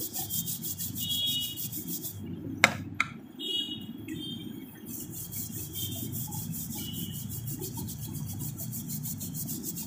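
Thick paintbrush scrubbing paint across paper mounted on cardboard, a continuous rough rubbing. Two sharp taps come close together about a quarter of the way in.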